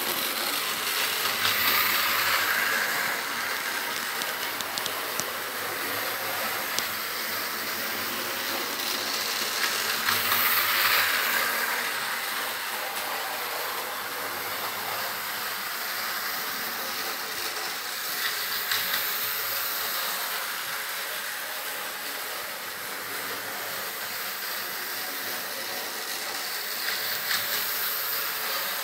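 Rail depot ambiance of idling electric locomotives: a steady hiss that swells a couple of seconds in and again about ten seconds in, with a few faint clicks.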